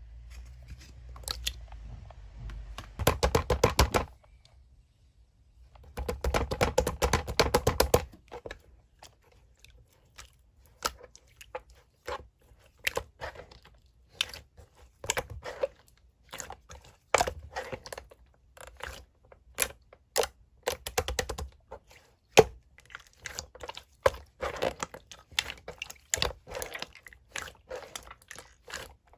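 Clear slime being pressed and kneaded by hand, making sharp wet clicks and pops: two dense runs of rapid clicking in the first eight seconds, then separate clicks and pops scattered through the rest.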